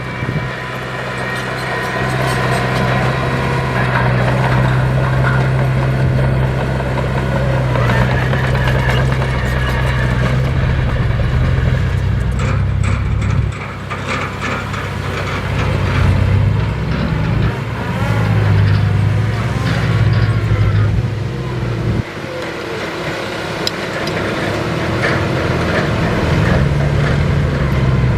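Heavy earthmoving machine's diesel engine working under changing load, its low note rising and falling, with sudden drops about halfway through and again about three-quarters through.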